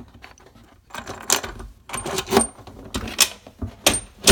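Plastic Toto Neorest bidet seat being pushed down onto its base, giving a series of knocks and clicks as its bolts find the holes, with the loudest click near the end as the seat snaps into place, and a couple of brief high squeaks.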